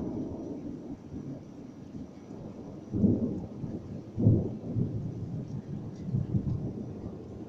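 Thunder rumbling, swelling twice with louder peaks about three and four seconds in, then dying away near the end.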